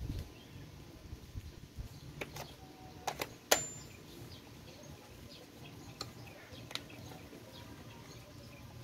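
A few sharp metallic clicks and clinks from tools and parts being handled on the transmission case. The loudest comes about three and a half seconds in and has a brief high ring after it. Small birds chirp faintly throughout.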